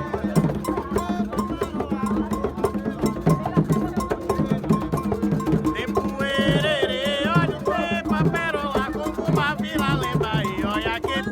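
Candomblé ritual music: hand drums and a struck metal bell keep a steady rhythm while voices sing. The singing grows stronger about halfway through.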